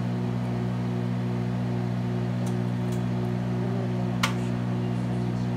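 Microwave oven running with a steady low hum, and a single sharp click about four seconds in.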